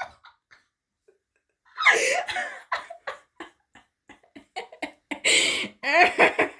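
People laughing and gasping without words in reaction to a photocard reveal, with a short quiet gap before the laughter starts about two seconds in and picks up again near the end.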